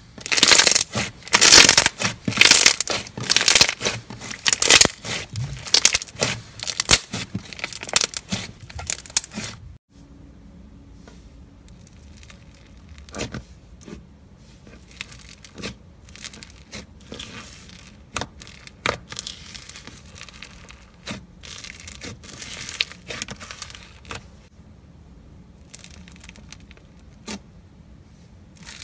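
Hands squeezing and kneading white slime, making loud, rapid crackling for about the first ten seconds. Then fingers pressing into gold floam slime give quieter, scattered crackles and soft squishes.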